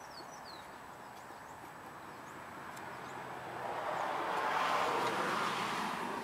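Outdoor background: a steady faint hiss that swells into a louder rush of noise over a couple of seconds and then fades near the end, with a few short bird chirps near the start.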